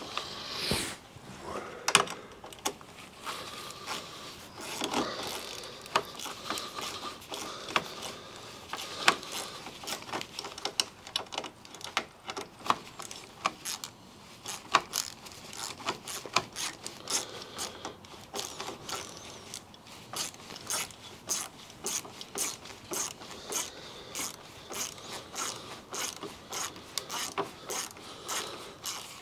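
Hand ratchet wrench clicking as a nut is turned on a trailer-hitch crossbar bolt. The clicks come in uneven spurts at first, then settle into a steady run of about two to three a second.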